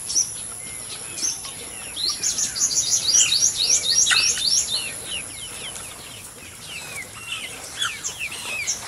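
Young chickens peeping, with many short chirps that fall in pitch. Through the middle there is a quick run of them, about four a second, with scattered single peeps before and after.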